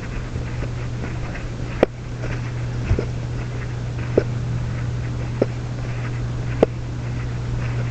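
Footsteps at a slow, even walking pace, one about every second and a quarter, over a steady low hum.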